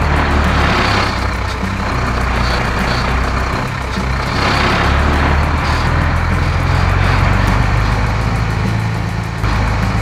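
Heavy truck engine running steadily, a cartoon sound effect, its noise swelling and easing a few times.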